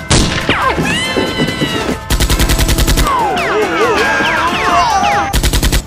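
Machine-gun sound effects: a sharp shot at the start, a rapid burst of about ten shots a second lasting about a second, and a second shorter burst near the end. Between the bursts come sweeping, gliding tones over background music.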